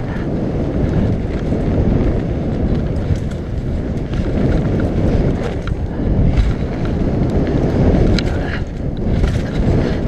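Mountain bike riding down a dirt jump trail: a loud, steady rumble of wind on the microphone and tyres on packed dirt, with scattered clicks and rattles from the bike.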